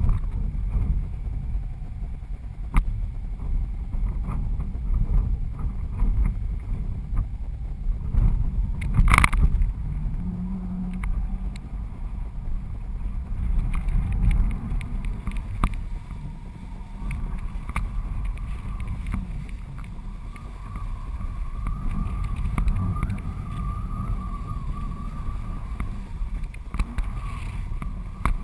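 Wind buffeting a GoPro mounted on the strut of a flying 14 m Switchblade kite: a steady low rumble with scattered ticks and one sharp crack about nine seconds in. From about halfway a faint wavering high whistle joins the rumble.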